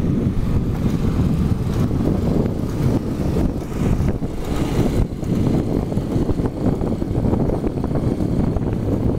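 Motorcycle riding along: a steady engine rumble mixed with wind buffeting the microphone.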